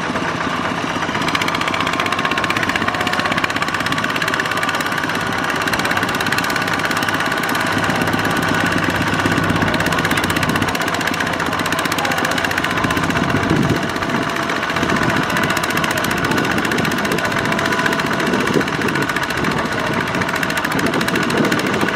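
Single-cylinder diesel engine of a two-wheel walking tractor running steadily under load, its drive wheels churning in deep mud as it tows a heavily loaded trailer.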